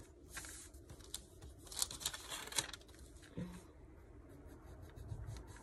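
Pencil scratching on pattern paper as a line is traced, with faint rustles of the paper; the busiest, loudest stretch comes about two seconds in.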